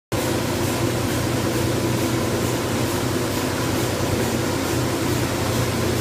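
Steady hum and whir of a running hose production line: the peeling and printing machines and the hose coiling turntable, with several steady low tones over an even mechanical noise.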